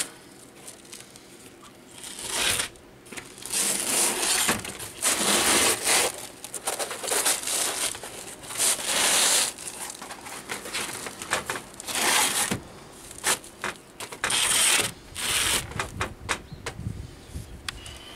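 Roll of bitumen roofing felt being handled and rolled back up: stiff crinkling, crackling and scraping in irregular bursts with short quiet gaps.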